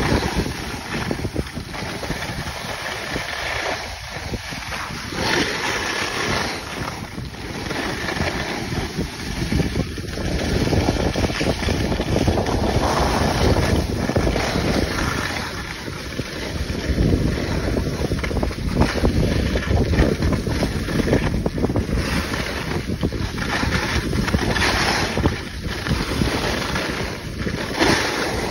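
Wind rushing over a phone's microphone while skiing downhill, mixed with the hiss and scrape of skis sliding over packed snow, swelling and fading with the turns.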